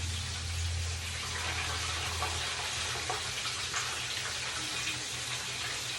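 Steady hiss of chicken wings frying in hot oil, with a few faint clicks and a low hum in the first couple of seconds.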